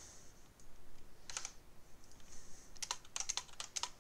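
Computer keyboard keys being typed: a short run of keystrokes about a second in, then a quicker run of several keystrokes near the end.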